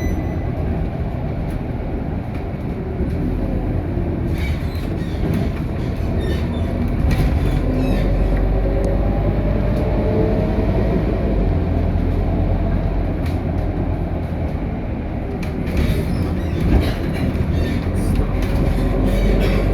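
Interior of a Scania K230UB city bus on the move: a steady low drone from the diesel engine and road rumble, with body panels rattling. A whine rises about halfway through as the bus gathers speed, and there is a single knock near the end.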